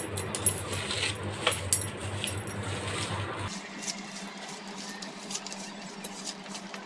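Bangles clinking as a hand mixes raw chicken pieces with spices in a steel plate, with soft rubbing and squishing of the mix against the metal. A few sharp clinks come in the first couple of seconds, then it goes quieter.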